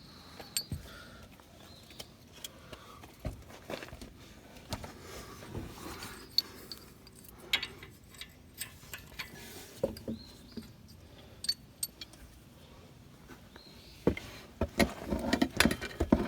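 Irregular metallic clicks and clinks of hand tools working the new front shock's top mount nut, with a busier run of knocks and clatter near the end.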